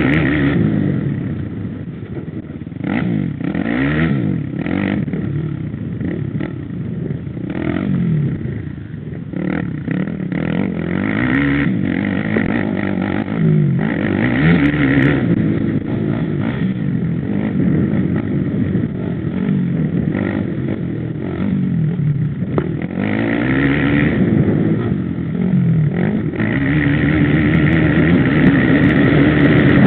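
Dirt bike engine under hard riding, its pitch climbing and falling again and again as the throttle opens and closes, with a few short knocks mixed in.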